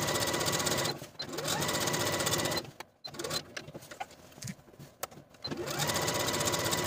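Electronic sewing machine stitching long basting stitches through chambray fabric. It runs in three spells, each opening with a rising motor whine. There is a short stop about a second in and a longer pause in the middle, where the fabric is handled and there is a single click.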